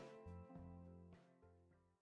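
Background music with a few sustained notes, fading out steadily toward the end.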